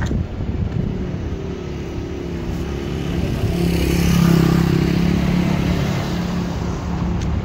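A motor vehicle drives past close by: its engine note grows to a peak about halfway through and then fades, heard over wind buffeting the microphone.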